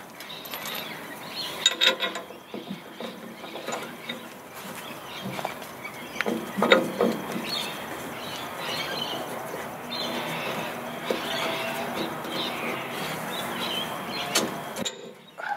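Irregular metal clinks, knocks and scraping as a boat's rudder stock flange is lined up under the hull and its bolts are fitted by hand. The sound cuts off suddenly near the end.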